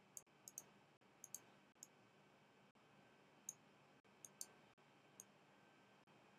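Faint computer mouse clicks, about ten at irregular spacing, against near silence.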